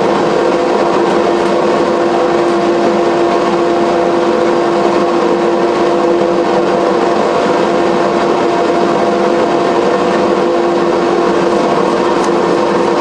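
Angle grinder running steadily, hollowing out the curve of a 16-inch glass mirror blank, a constant motor hum over a grinding hiss.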